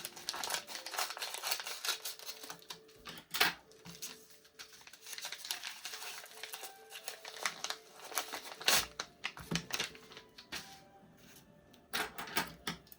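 Plastic packaging and card sleeves crinkling and rustling as trading cards are handled and unpacked, with many sharp clicks and taps. Faint background music sits underneath.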